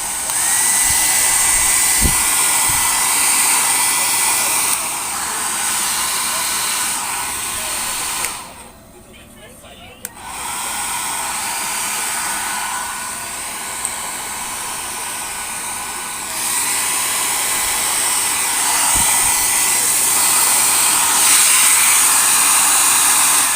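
Hair dryer running after repair: a steady fan rush with a faint high motor whine that rises as it spins up. It is switched off for about two seconds partway through, then runs again, its loudness stepping up and down a couple of times.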